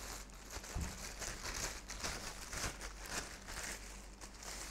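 Plastic packaging crinkling and rustling as it is handled, in a run of irregular crackles.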